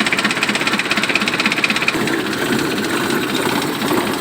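Mitsubishi L200 pickup's diesel engine idling with an even, rapid knock; its sound changes about halfway through.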